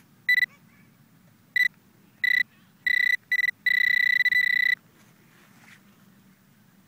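Metal detector beeping a high tone of one fixed pitch: five short beeps, then a held tone for about a second, as it sounds off on a metal target in the dug soil plug.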